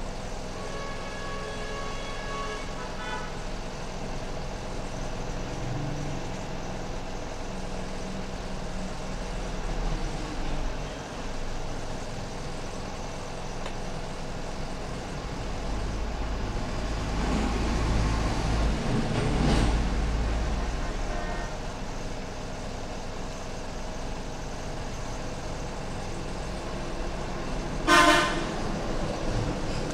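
Road traffic: a horn sounds for a couple of seconds at the start, a vehicle passes with a low rumble around the middle, and a short, loud horn toot comes near the end.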